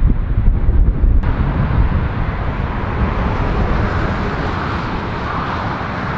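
Storm wind buffeting the microphone with a heavy low rumble; about a second in the sound changes abruptly to the steady engine noise of a jet airliner coming in to land in a strong crosswind, still mixed with wind.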